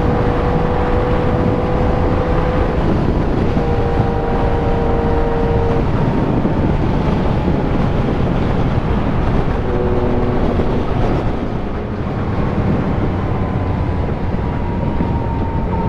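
Motorcycle riding at a steady cruising speed, its engine note mixed into heavy wind rush on the rider's microphone.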